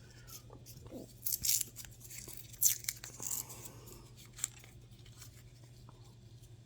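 Coin roll wrapper rustling and crinkling in short, scattered bursts as silver half dollars are worked out of the roll, over a steady low hum.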